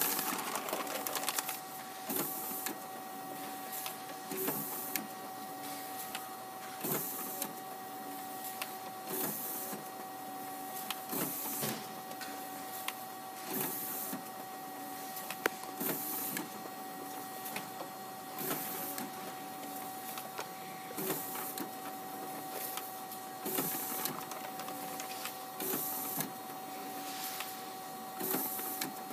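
Kodak 9125c high-volume document scanner feeding and scanning a stack of paper sheets in colour duplex. A steady motor whine runs under a regular rhythm of paper swishes and roller rattles, the strongest about every two seconds as each sheet passes through.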